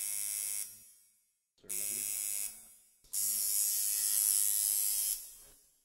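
Coil tattoo machine buzzing in three runs: two short bursts of under a second, then a longer run of about two seconds, each switched off and dying away.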